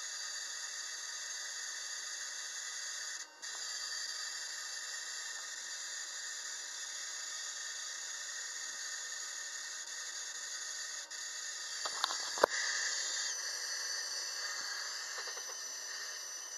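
12-volt ignition coil driven by a MOSFET circuit, firing continuously at full intensity with a steady hiss of rapid sparking. A few sharp clicks come about twelve seconds in.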